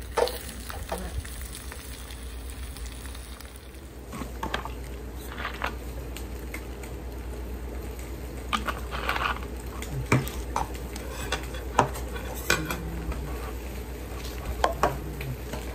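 An egg frying and sizzling in a pan, with a sharp clink of the spatula near the start. After about four seconds this gives way to scattered clinks and short scrapes of cutlery against a plate.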